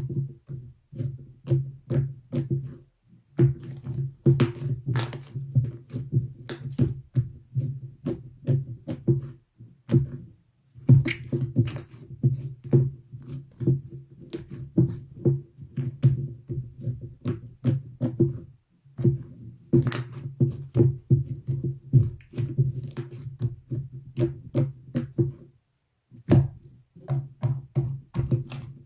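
Slime being squeezed and poked by hand, giving fast runs of wet pops and clicks that stop briefly a few times.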